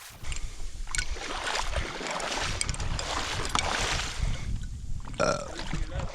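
Water sloshing and splashing as someone wades through shallow water moving duck decoys, with irregular swells and a few light knocks, over wind rumble on the microphone. A brief pitched call-like sound comes about five seconds in.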